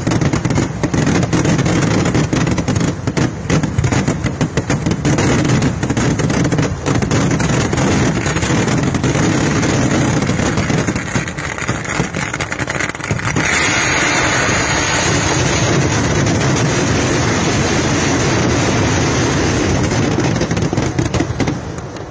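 Kerala temple fireworks (vedikkettu) going off in a continuous barrage: rapid bangs packed so close they merge into a steady roar. About halfway through it turns into a brighter, hissing roar.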